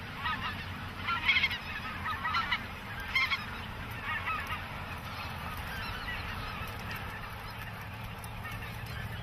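A flock of greater white-fronted geese calling, many high-pitched, yodel-like calls overlapping, busiest in the first few seconds and thinning out later, over a steady low background noise.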